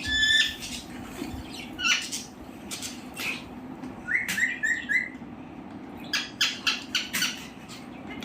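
Pet parakeet squawking in short, sharp calls, with a quick run of four short notes about four seconds in and a burst of loud squawks near the end.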